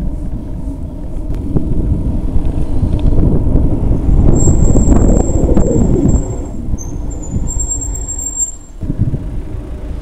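Motorhome driving slowly on town streets, its engine and road noise a steady low rumble. A high, thin brake squeal sets in about halfway through and runs for some four seconds as the vehicle slows toward a stop.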